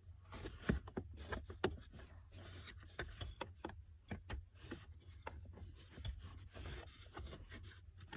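Plastic cabin air filter cover and its pinch tabs being worked by hand: scattered clicks and light knocks with rubbing and scraping of plastic.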